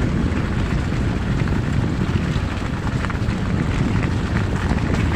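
Small motorcycle running steadily with two people riding, mixed with wind buffeting the microphone.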